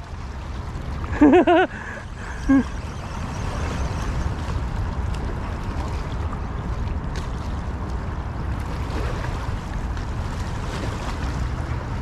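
Steady wind and water noise on a rocky riverbank: a low rumble with an even hiss of water against the shore. A short vocal exclamation comes a little over a second in, and a briefer one at about two and a half seconds.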